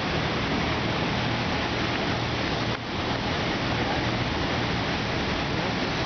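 River water rushing over rocky ledges, a loud steady roar, with a low steady hum underneath from the hydroelectric plant's turbines. The roar dips briefly about halfway through.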